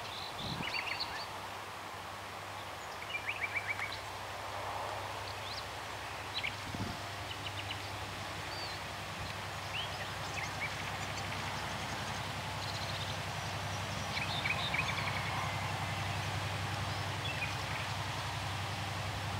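Songbirds chirping and trilling over the low, steady hum of a diesel locomotive engine. The engine is an HŽ series 2044 diesel-electric, and its hum grows stronger about halfway through as the freight train draws closer.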